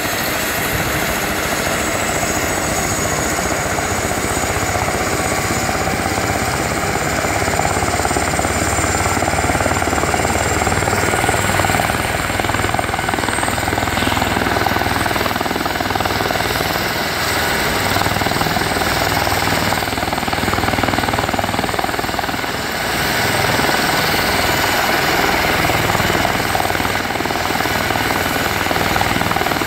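Airbus EC145 T2 helicopter's twin turbine engines and rotors running steadily on the ground, a constant high whine over a low pulsing rumble.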